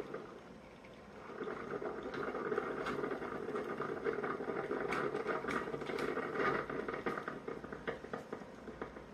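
Black+Decker CM618C single-serve coffee maker brewing: hot water gurgling and sputtering through the machine with rapid crackles and pops. It swells about a second in and thins out near the end.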